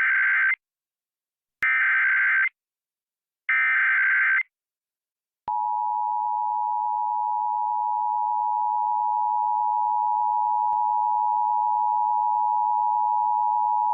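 Emergency Alert System tones on an FM radio broadcast. Three warbling one-second SAME data header bursts come first, then, about five seconds in, the steady two-tone EAS attention signal holds to the end. Together they signal the start of an emergency alert, here a child abduction AMBER Alert.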